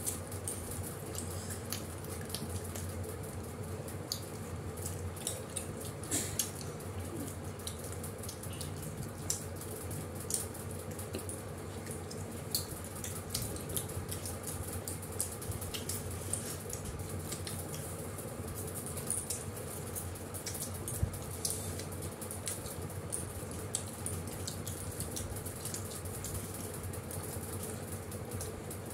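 Several people eating roti and curry by hand: soft chewing and tearing, with scattered small clicks over a steady low hum.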